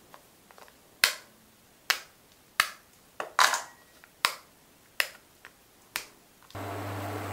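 A bar of dark chocolate being broken by hand, square by square, over a stainless steel bowl: about nine sharp snaps, roughly one a second or a little faster. Near the end the sound cuts to a steady hiss with a low hum from a pot of water heating on an induction hob.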